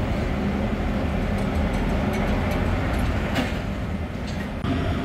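Heavy vehicle engine running steadily, a low rumble, with a short knock about three and a half seconds in.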